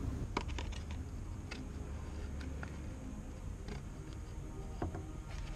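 Flat-blade screwdriver working at the plastic catches of a wiring-harness box in a car's engine bay: scattered light clicks and taps over a low steady hum.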